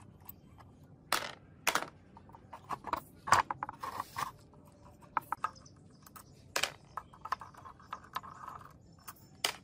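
Irregular metallic clinks, taps and scrapes of bolts, a steel bracket and hand tools on a small four-stroke engine being taken apart; a few of the clinks ring briefly.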